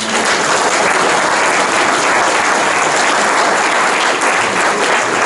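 An audience applauding, starting all at once and holding steady.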